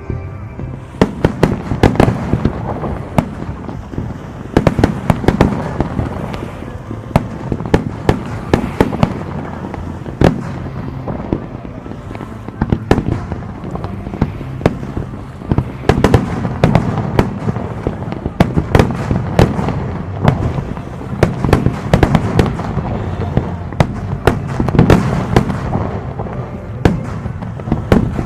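Aerial fireworks display: shells bursting one after another in rapid, irregular bangs, several a second at times, over a continuous low rumble.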